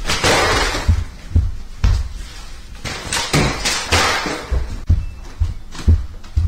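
A series of dull thumps and knocks, about ten spaced unevenly over six seconds, with rustling between them.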